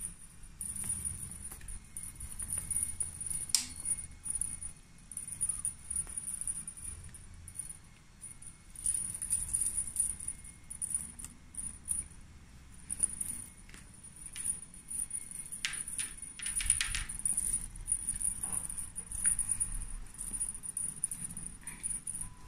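Scattered light rustling and small clicks from a kitten playing with a wand toy on a knitted cushion, busiest about two-thirds of the way through, over a faint high-pitched whine that comes and goes.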